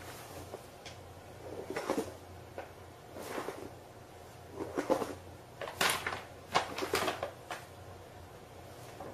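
A series of short knocks and scrapes, coming in about five irregular bunches over several seconds, loudest about halfway through.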